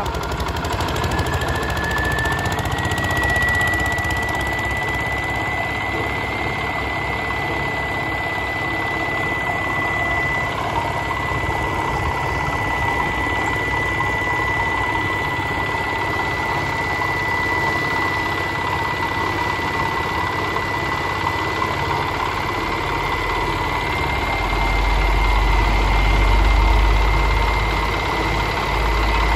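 Single-cylinder Dongfeng diesel engine on an asphalt-cutting road saw, running steadily. A thin high whine rises in the first couple of seconds and then holds steady, and a deeper rumble swells in near the end.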